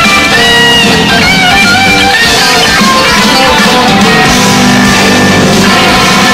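Live blues-rock band playing, led by an electric guitar whose lead lines bend and slide between notes over the rhythm guitar, bass and drums.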